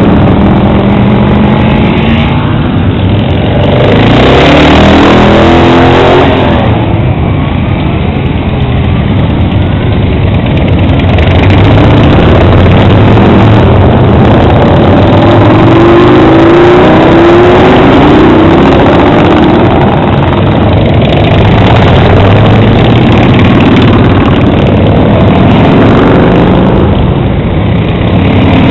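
Motorcycles riding past one after another, mostly big cruiser bikes, their engines running loud and revving as each goes by, the pitch rising and falling with each pass.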